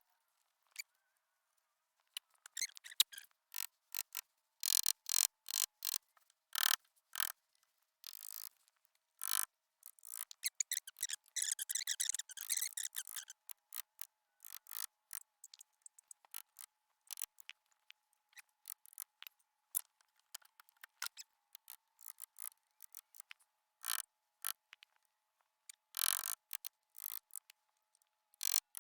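Pencil scratching on wood in short strokes, tracing an outline, mixed with light clicks and taps; a dense run of scratching comes about ten to thirteen seconds in.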